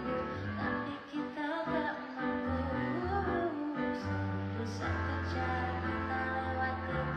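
A woman singing into a handheld microphone over instrumental accompaniment, with sustained low bass notes under her melody.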